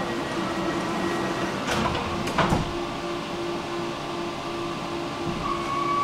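Tram running with a low tone pulsing on and off about twice a second, and two short sharp noises close together about two seconds in.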